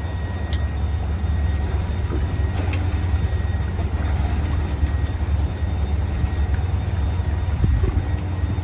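Steady low rumble of wind buffeting the microphone on an open fishing boat at sea, with the sea washing around the hull and a few faint clicks.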